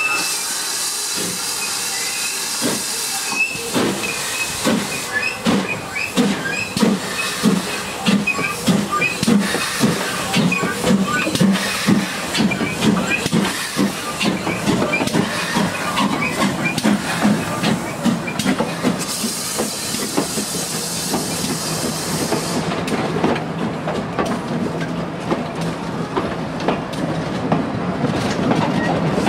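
GWR 4575 class 2-6-2T steam tank locomotive No. 5526 pulling away with a train: a hiss of steam, then exhaust chuffs that quicken as it passes close by, with more hissing. The carriages follow, their wheels clattering over the rail joints.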